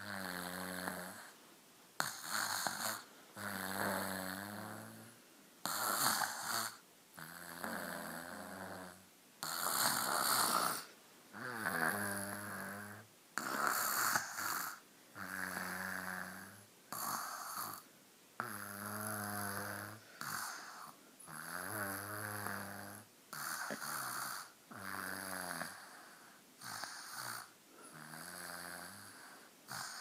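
Young child snoring in deep sleep through an open mouth, a snore on each breath, coming regularly about every second and a half.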